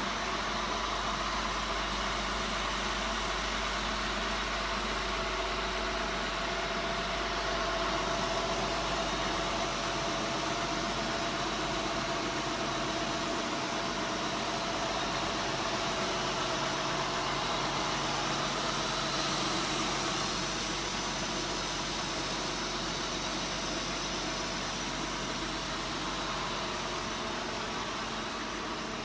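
2003 Honda Pilot's 3.5-litre V6 idling steadily.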